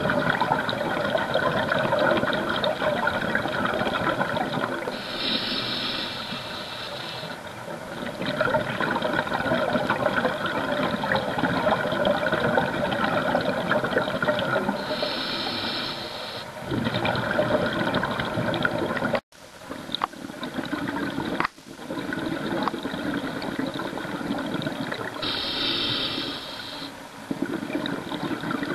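Scuba regulator breathing heard underwater: a short hiss on each inhalation, three times about ten seconds apart, with bubbling exhaust between them as exhaled air rushes out. The sound cuts out briefly twice, a little over halfway through.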